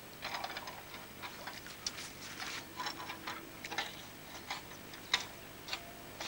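Irregular light clicks and taps of fishing tackle being handled, a dozen or so, one sharper tap just after five seconds.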